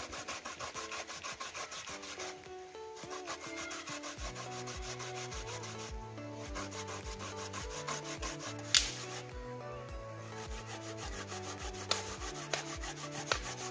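Pumpkin being grated on a stainless steel box grater into a metal bowl: quick, repeated rasping strokes with a few short pauses. Background music with a steady bass beat plays under it, the beat coming in about four seconds in.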